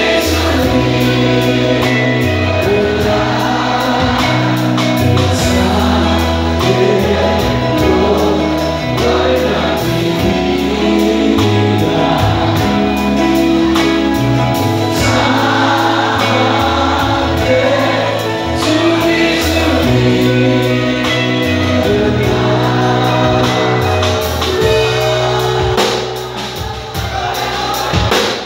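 Rock band playing live, with electric guitars, bass guitar and singing, loud and dense as captured on a mobile phone from the stage.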